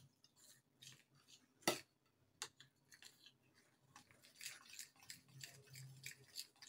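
Faint scraping and a few light clicks from a flour-and-cornflour coating mixture being stirred in a glass bowl, with one sharper click a little under two seconds in.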